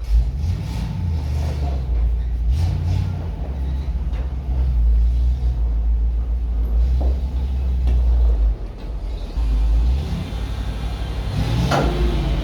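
Dump truck engine running as the truck drives, its low rumble stepping up and down in pitch several times. A short, sharper noise comes near the end.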